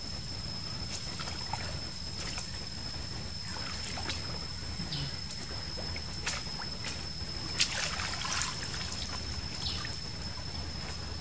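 Shallow stream water splashing and sloshing as a person wades in and dips a woven bamboo basket into it, in scattered short splashes, the loudest about seven to eight seconds in.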